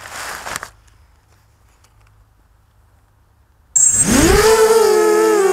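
Quadcopter's four Emax MT1806 brushless motors with Gemfan 5030 propellers spinning up suddenly near the end, rising sharply in pitch and then holding a loud, steady hum made of several tones that waver against each other. Before that there is a brief crackling rustle, then quiet.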